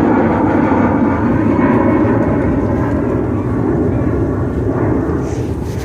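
Jet airliner's engines passing nearby: a loud, steady rumbling roar that eases off slowly toward the end.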